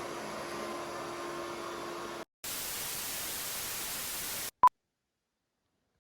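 A steady low hum with faint steady tones cuts out about two seconds in, then an even TV-static hiss runs for about two seconds, ending in one short high beep, followed by dead silence.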